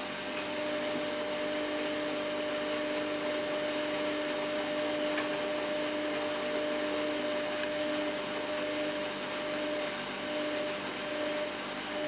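Samsung WF8804RPA front-loading washing machine running in its rinse and interim-spin stage: a steady motor hum with a constant pitch over a soft even hiss.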